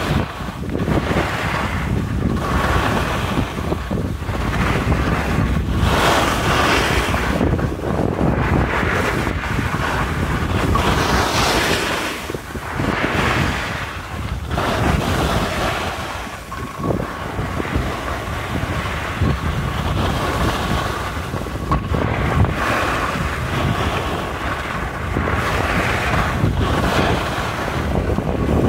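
Rushing wind on the microphone of a moving skier, with the hiss and scrape of skis carving turns on packed snow swelling and fading every two seconds or so.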